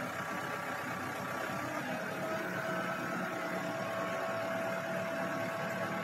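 FDI Sambron telehandler's diesel engine running steadily with a thin steady whine over it, as the boom lowers a slung stone obelisk into place.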